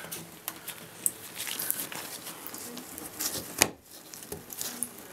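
Gloved hands handling bathtub faucet parts: rubber-glove rustling and scattered small clicks, with one sharp click about three and a half seconds in.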